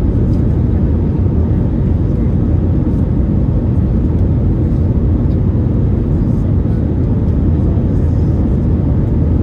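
Steady loud low rumble inside the cabin of an Airbus A321neo: engine and airflow noise heard through the fuselage, with no marked rise or fall.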